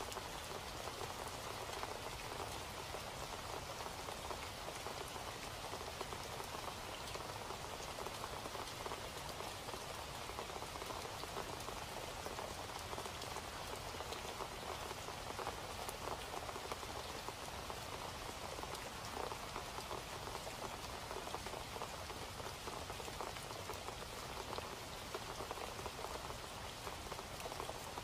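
Steady rain falling, even and unbroken.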